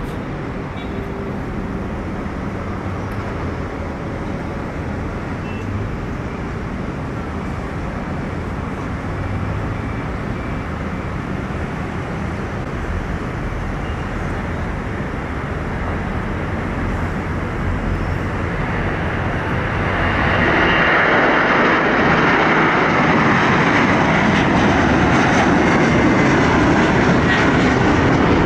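Airbus A330-303 airliner's two General Electric CF6-80E1 turbofans at takeoff thrust, a steady jet noise building as the aircraft rolls down the runway and lifts off. It grows much louder about 20 seconds in.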